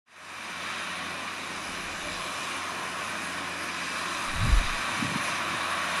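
Belarus MTZ 1221.2 tractor's diesel engine running steadily under ploughing load, heard from a distance as a steady hum. A brief low thump about four and a half seconds in.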